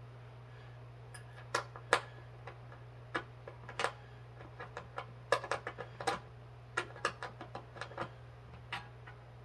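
Irregular metallic clicks and clinks from a hand-turned Allen wrench working the bolts of a steel workout bench frame, starting about a second and a half in and coming in uneven clusters.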